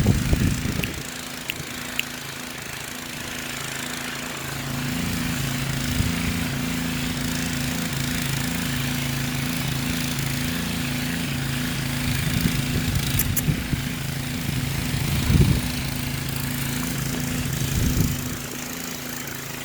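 Gas-engine pump running steadily and loudly with an even low hum, getting a little louder about four seconds in. A few brief low thuds on the microphone.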